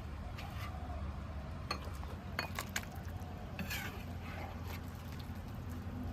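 Dishes and utensils clinking a few separate times as boiled dumplings are scooped out and dished up, over a steady low hum.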